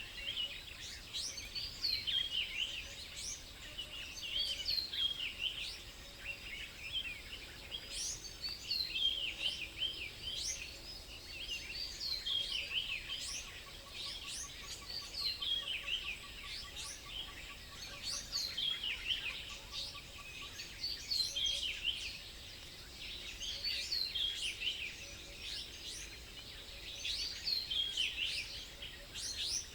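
Small songbirds chirping continuously, many quick falling chirps overlapping. A faint, fast, even trill runs underneath for several seconds in the middle.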